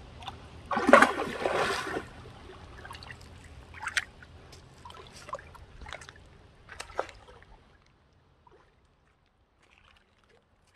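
Golden retrievers wading and splashing in shallow river water over rocks: one loud splash about a second in, then scattered smaller splashes and clicks. It falls to near silence for the last few seconds.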